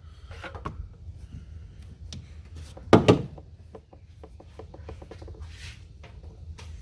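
Handling noise from a removed AC refrigerant line and its hardware: scattered small clicks and knocks, with one louder clunk about three seconds in.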